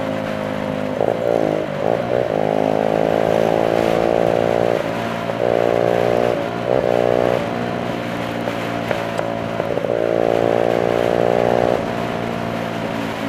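Motorcycle engine running under way, a steady note that breaks and shifts in pitch several times, over a steady hiss of wind and road noise.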